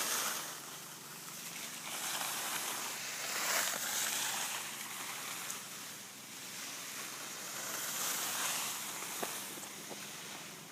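Skis sliding and scraping over spring snow: a continuous hiss that swells and fades every few seconds with the turns.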